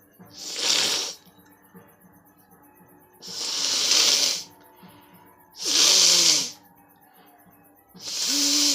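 A person blowing their nose forcefully four times, each blast a hissing rush about a second long, a few seconds apart; the fourth begins near the end.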